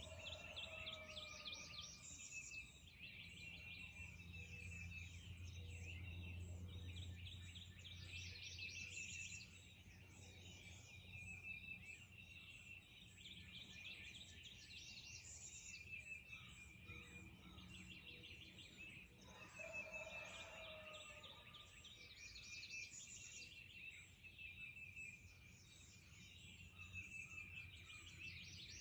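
Faint morning birdsong: several songbirds repeat short songs and trills every few seconds. Twice, near the start and about two-thirds through, a lower call falls in pitch. A steady low hum sits underneath.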